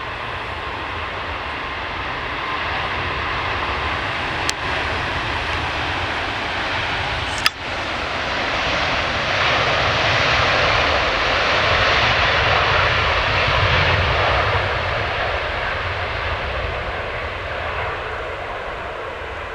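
Airbus A350's twin Rolls-Royce Trent XWB turbofans at takeoff thrust: a loud, steady jet rumble that builds to its loudest about two-thirds of the way through, then begins to fade as the aircraft passes. Two sharp clicks come a few seconds apart near the start.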